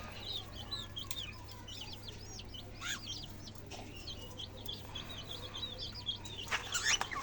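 Newly hatched chicks peeping continuously: a stream of short, high cheeps, with a louder call near the end.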